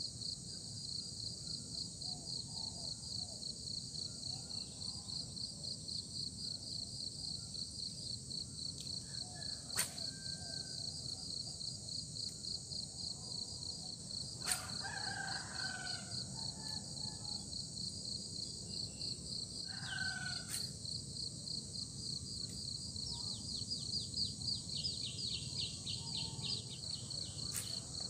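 Insects chirping in a steady, rapid pulsing trill, with a few sharp clicks about ten, fifteen, twenty and twenty-seven seconds in. Two short bird calls come midway, and a quick trill of rapid notes near the end.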